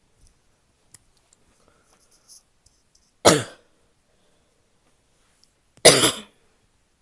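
Two barky, wet coughs from a woman, about two and a half seconds apart, each one short. A few faint ticks come before the first cough.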